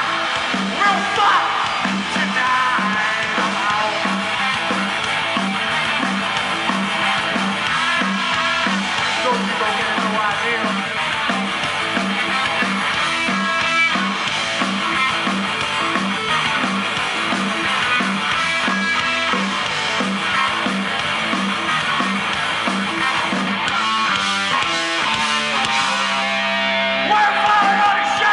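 Rock band playing live: guitars over a steady, driving beat, with a change in the playing near the end.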